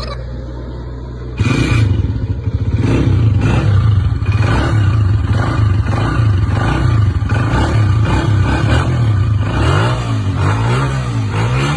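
Pushrod motorcycle engine running with a clattering valve-train noise, which the owner blames on the pushrods. It idles for about a second and a half, then is revved and let fall back several times, its pitch rising and falling.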